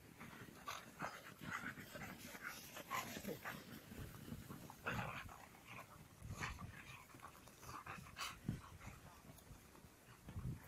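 Huskies panting and scuffling in snow as they play-fight, with irregular short rustles and thuds.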